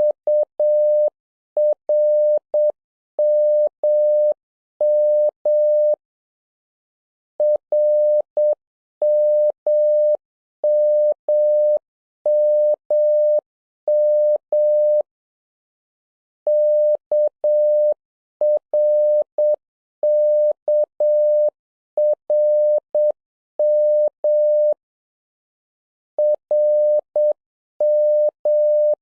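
Morse code practice tones: a single beep of about 600 Hz keyed on and off in dots and dashes, sending letter groups. A longer pause comes three times, roughly every nine seconds.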